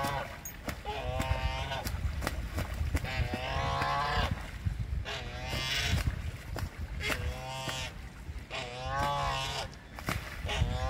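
Canada geese fighting on water: about six drawn-out, wavering honking calls come one every second or two, mixed with splashing and the beating of wings on the water.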